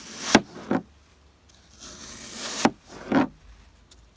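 Knife slicing through dry floral foam, two strokes. Each is a crunching rasp that swells into a sharp crack as the blade goes through, followed by a softer second knock.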